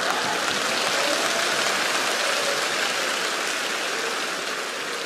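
Studio audience applauding, a dense steady clapping that slowly fades toward the end.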